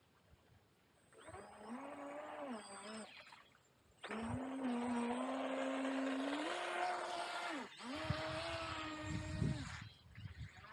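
Electric motor of a radio-controlled model whining under throttle in three bursts, a short one, a long one whose pitch steps up partway through, and a shorter one near the end, over a hiss.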